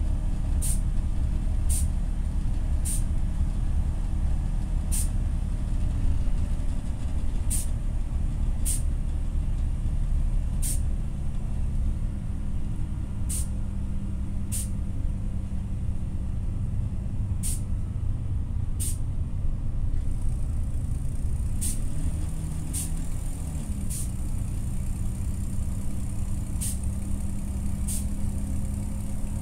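Inside a TCV Karat city bus under way: the engine gives a steady low drone, with short sharp high-pitched clicks every one to two seconds at uneven spacing. The engine sound is badly faulty.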